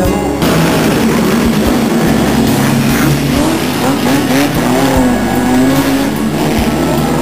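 Historic racing cars' engines revving as they accelerate past one after another, the pitch rising and falling in short sweeps.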